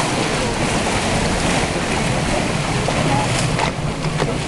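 Motorboat engine running steadily under a loud rush of wind on the microphone and water, with a few sharp clicks near the end.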